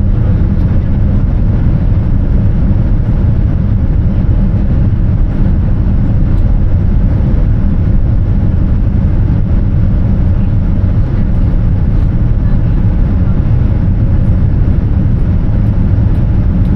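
Steady low rumble of cabin noise inside a Boeing 787-10 Dreamliner airliner: engine and airflow noise heard from the passenger seat, loud and unchanging.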